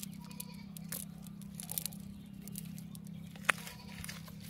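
Hands pulling water weeds out of a wet, muddy fishing net: scattered crackling, rustling and snapping, with one sharp click about three and a half seconds in. A steady low hum runs underneath.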